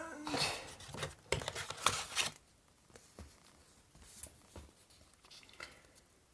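Paper booklets and packaging being handled and rustled: a flurry of crinkles and crackles over the first two seconds, then quieter scattered rustles and taps.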